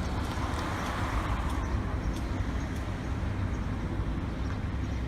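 John Deere 35G compact excavator's diesel engine running steadily with a low rumble, with a brief swell of higher-pitched noise about a second in and faint clicks.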